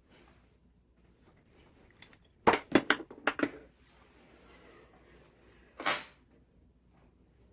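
Kitchenware clattering: a quick run of knocks and clinks about two and a half seconds in, then one more short clatter near six seconds.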